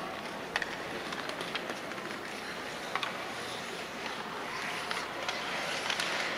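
Ice hockey skates scraping and carving on the ice, with a few sharp clacks of sticks on the puck and ice, over the steady hiss of an arena. The scraping swells near the end as players battle for the puck.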